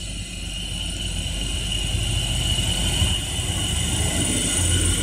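Greater Anglia Class 720 Aventra electric multiple unit running into the platform, its rumble growing louder as it comes alongside, with a steady high-pitched whine from its electric traction equipment.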